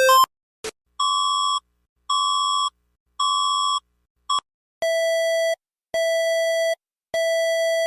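Electronic emergency-alert tone sequence: three evenly spaced high beeps about a second apart, a short blip, then three longer, lower buzzing tones.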